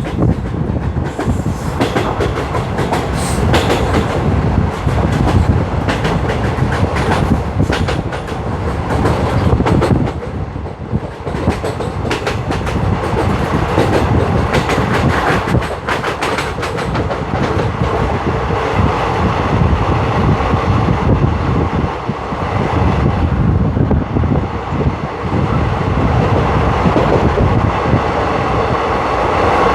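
Steady loud rumbling with a clatter of rapid, irregular clicks and rattles, heaviest through the middle stretch.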